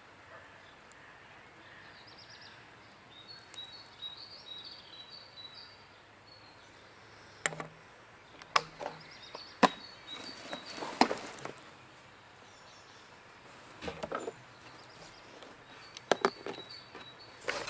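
Small birds chirping in short phrases, with a scattering of sharp clicks and knocks from about halfway through.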